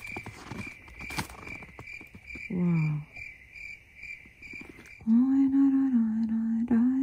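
A high chirp repeats evenly about two to three times a second, with a brief falling vocal sound near the middle. About five seconds in, a louder voice starts singing long, held notes.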